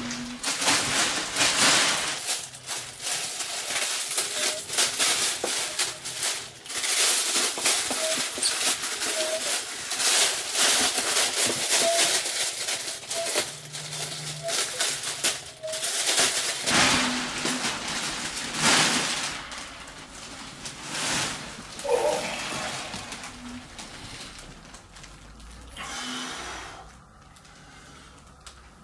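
Clear vacuum-pack plastic wrapping from a memory foam mattress crinkling and rustling loudly as it is pulled off and bunched up, the crackling dying away over the last several seconds.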